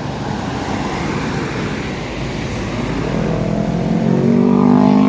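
Bus passing close by, tyre and engine noise, with the engine's steady hum growing louder over the last two seconds as it draws level.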